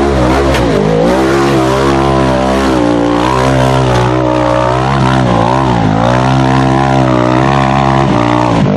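Off-road vehicle engine running hard. Its pitch dips and recovers several times as the throttle is lifted and reapplied.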